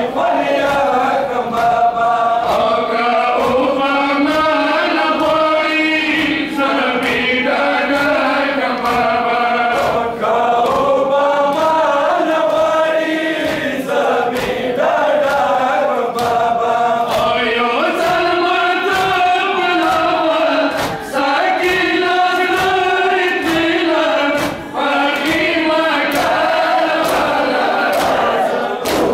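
A crowd of men chanting a Muharram mourning lament (noha) together, with a steady beat of open-hand slaps on their chests (matam) keeping time.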